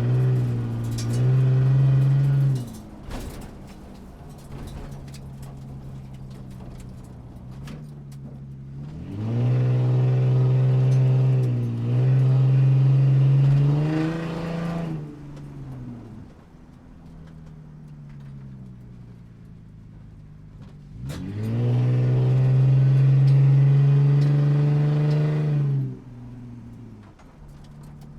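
Motorcycle engine revving in three long surges, each climbing in pitch and holding high before dropping back to a quieter steady running in between.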